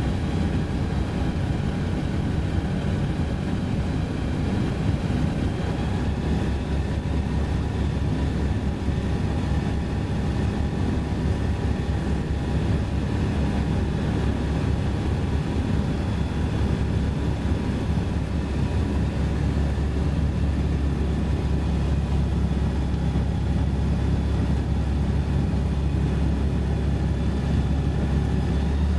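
Engine of an open-cockpit light aircraft running steadily in flight, its drone mixed with wind rushing over the microphone.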